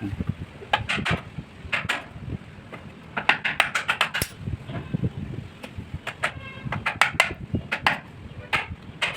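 Irregular knocks and clinks of hard objects being handled, with a short ringing note about six and a half seconds in.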